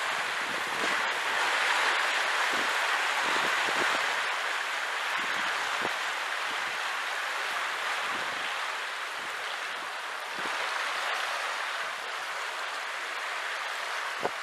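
Water rushing and churning through the sea lock's gate sluices as the lock chamber levels: a steady rushing noise with a few faint splashes.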